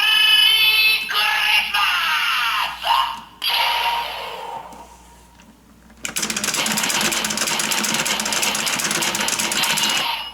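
Electronic sound effects from a Geartlinger toy blaster's small speaker. Swooping electronic tones play for the first few seconds and fade out. From about six seconds in, a rapid ringing, buzzing stream of repeating tones takes over.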